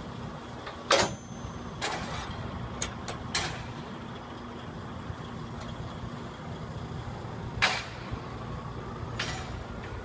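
Sharp metal clanks from the hand lever and locking gear of a Fliegl Vario telescopic container chassis as it is worked by hand, loudest about a second in and again near eight seconds, with smaller knocks between. A steady low engine hum runs underneath.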